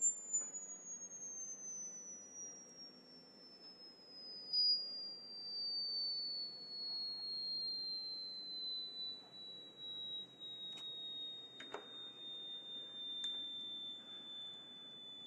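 A single thin, high-pitched tone gliding slowly downward, falling quickly at first and then levelling off into a steady whine, with a few faint clicks and a knock near the end.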